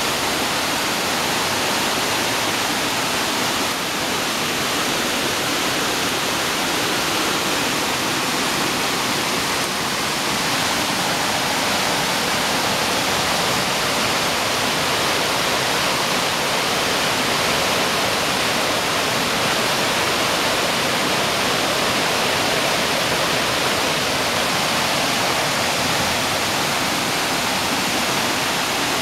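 Heavy rain pouring steadily while muddy floodwater rushes along a path. The small drainage channel has overflowed and cannot carry the volume of water.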